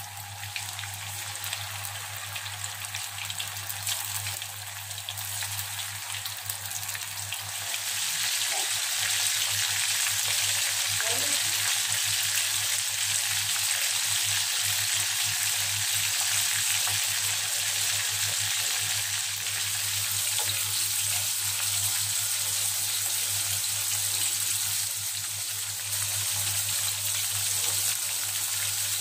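Masala-coated anchovies (nethili) frying in hot oil in a pan: a steady crackling sizzle that grows louder about eight seconds in, as more fish go into the oil.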